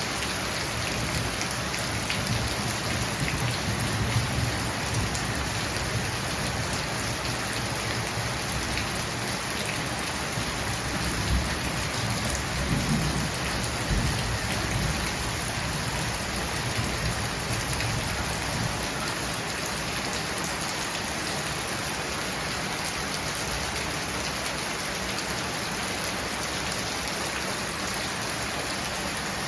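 Monsoon rain falling steadily, a dense even hiss, with a few low rumbles in the first half.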